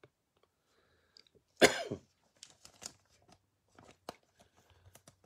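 One short cough about a second and a half in, followed by scattered light crinkles and clicks of trading cards and a clear plastic pack wrapper being handled.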